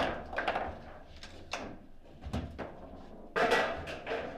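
Table football rods and figures knocking and clacking as the players handle the rods, in scattered sharp knocks with a louder cluster of knocks near the end.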